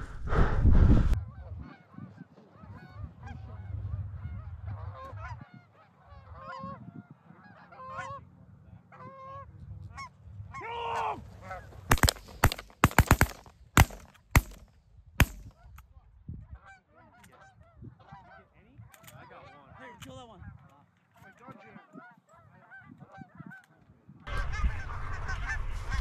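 Canada geese honking as a flock comes in over the decoys, then a rapid volley of about eight or nine shotgun shots in about three seconds as the hunters open fire, with scattered honking again afterwards.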